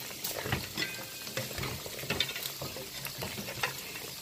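Wooden spoon stirring chunks of oxtail in thick sauce in a stainless steel pot: irregular wet scrapes and light knocks against the pot.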